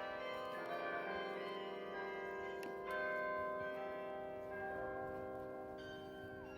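Carillon bells in the Bok Singing Tower playing a slow tune, each struck note ringing on and overlapping the next, with the loudest strike about halfway through.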